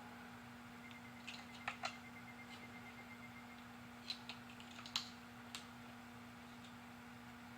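Light, scattered clicks and taps of small metal parts being handled while pistons are fitted to connecting rods, about eight short clicks clustered in the middle, over a low steady hum.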